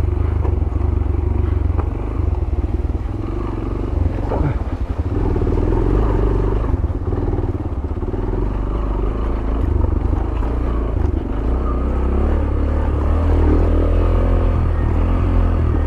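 Yamaha YBR 125G's single-cylinder four-stroke engine running steadily at low revs on a rough off-road descent, a little louder near the end.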